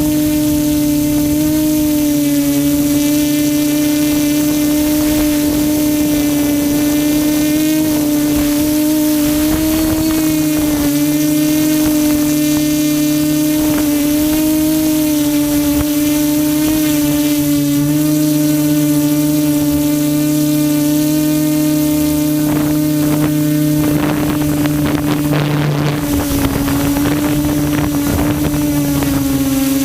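QAV400 quadcopter's electric motors and propellers humming steadily at a near-constant pitch that wavers slightly, with a rushing noise over the microphone.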